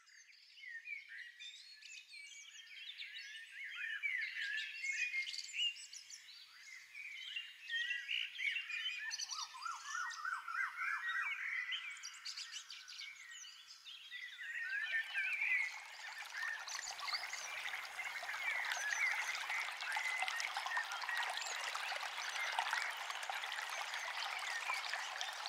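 Nature recording of animal calls, frogs and birds: many overlapping quick chirps that thicken into a dense, steady chorus about halfway through.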